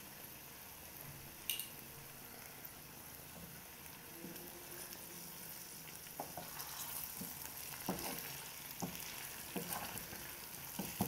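Potatoes and beetroot sizzling in oil in a steel pot, a steady hiss, with a single clink about a second and a half in. From about six seconds in a spoon stirs the pot, knocking and scraping against its sides roughly once a second.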